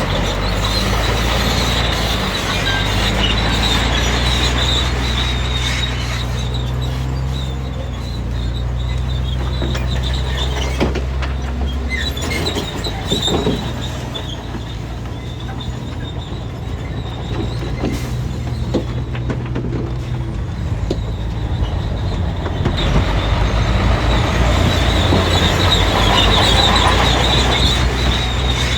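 Crawler bulldozer working: its diesel engine runs loud and steady, with the engine note shifting about midway and again near the end, while the steel tracks squeal and clank, most strongly at the start and in the last few seconds.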